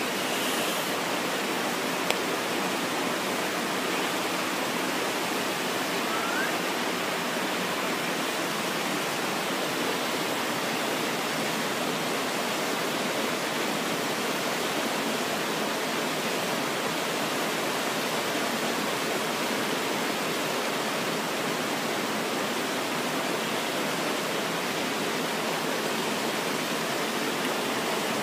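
Mountain river rushing over rocky rapids and small waterfalls: a steady, unbroken rush of water.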